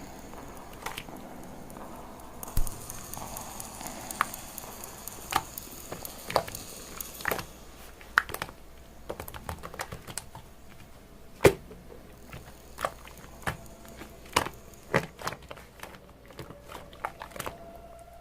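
Slime being squeezed and poked by hand, giving irregular sharp clicks and pops from trapped air, the loudest about eleven seconds in.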